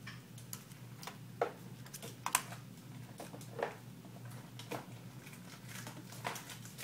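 Irregular small clicks and taps of an opened iPhone 4S and its small internal parts being handled and worked on by hand, about ten scattered clicks over a low steady hum.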